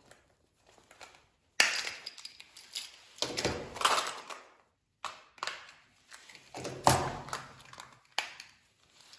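Small metal super key blanks handled as their container is opened: irregular clicks, clinks and rattles, starting about one and a half seconds in.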